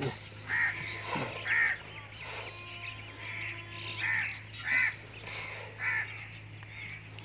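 Crows cawing, a series of short harsh caws about a second apart, over a steady low hum.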